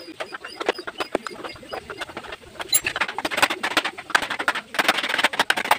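A dense run of rapid, irregular clicks and rattles, like small hard parts being handled or worked, growing louder after about three seconds.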